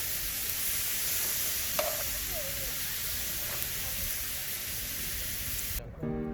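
Meat sizzling as it fries, a steady hiss that cuts off shortly before the end, where music begins.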